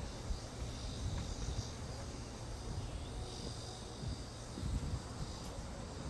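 Outdoor wind rumbling low on the microphone, with insects trilling in a high band that swells twice.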